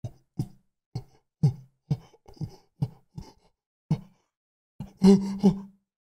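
A man's short breathy vocal sounds, about two a second, each cut off into dead silence, with a longer, louder voiced sound about five seconds in.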